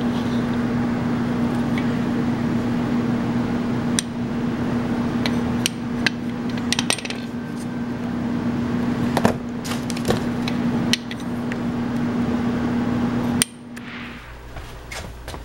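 A steady hum, the loudest sound, with scattered sharp metal clicks and clinks from handling a minibike centrifugal clutch. The hum cuts off suddenly near the end.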